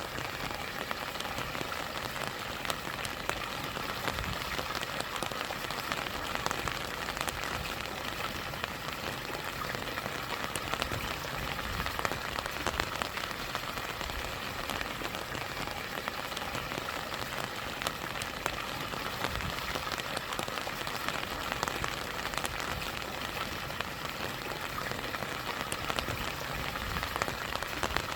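Steady rain with many separate drops ticking, over the even rush of stream water and a small waterfall.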